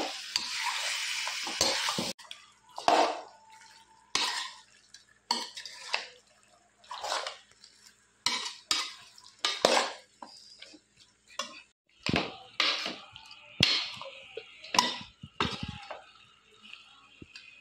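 A steel spoon stirring raw chicken pieces into frying onions in a pan: a steady sizzle for the first two seconds, then separate scrapes and clinks of the spoon against the pan, roughly one a second.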